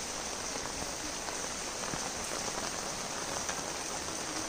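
Steady rain falling on a flooded street.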